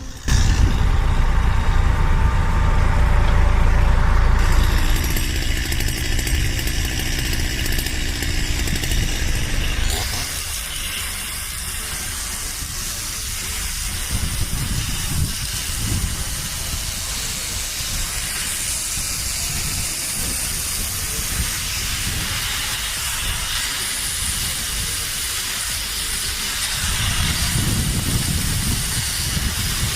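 Heavy machinery running: a low engine rumble under a steady hiss. The sound changes abruptly about five and ten seconds in.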